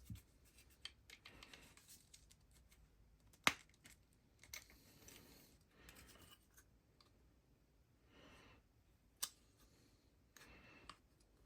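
Small plastic figure parts being handled and pressed together: soft rustling with scattered sharp clicks, the loudest about three and a half seconds in and another around nine seconds.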